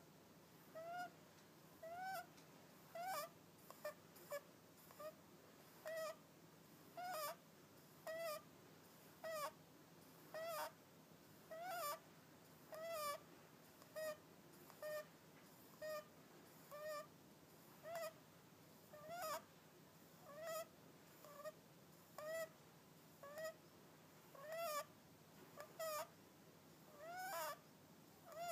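Netherland dwarf rabbit making a short squeaky whistle with each breath, about once a second, each one arching up and down in pitch, which the owner takes for snoring.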